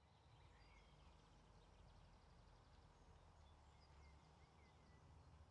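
Near silence: faint outdoor background with a low hum and a few faint bird chirps.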